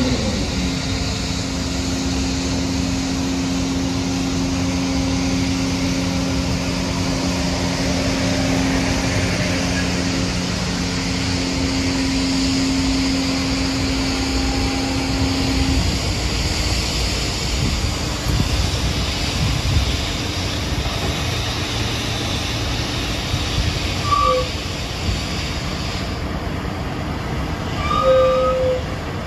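The Cummins ISB six-cylinder diesel engine of a rear-loader garbage truck running with a steady hum, which drops away about halfway through as the truck moves off slowly across the lot. Two brief squeaks come near the end.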